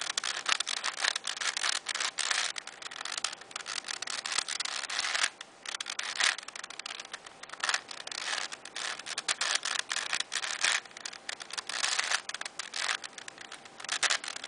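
Plastic layers of a puzzle cube bigger than 3x3 being turned quickly by hand: dense, rapid clicking and scraping, with a brief pause about five seconds in.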